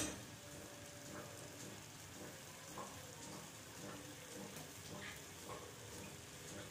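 Spiced tomato masala sizzling faintly in a pan around stuffed dumplings, with scattered small crackles.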